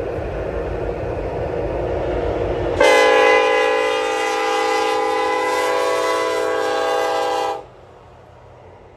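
Union Pacific SD70ACe diesel locomotive approaching, its engine and wheel noise growing louder, then sounding its multi-chime air horn in one long blast of about five seconds that cuts off sharply, leaving a lower train rumble.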